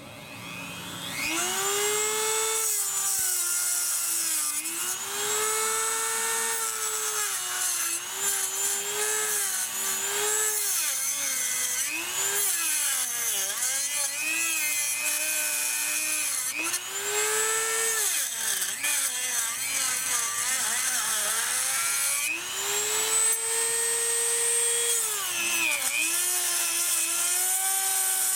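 Dremel rotary tool spinning up about a second in, then cutting into the plastic coolant passage of a Saturn intake manifold. Its high whine sags in pitch each time the bit bites into the plastic and climbs back between passes, over and over.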